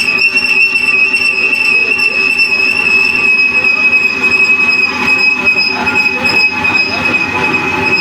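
Metal lathe turning a long pipe, with a loud, steady high-pitched squeal over the machine's running.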